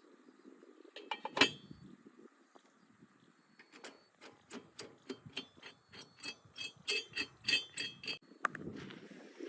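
Sharp metallic clinks and clanks: a cluster about a second in, then a run of about two to three a second from about four seconds to eight seconds, over a faint low engine rumble.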